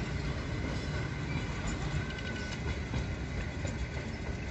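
Heritage electric streetcar running along the track at a distance: a steady rumble of the car on the rails.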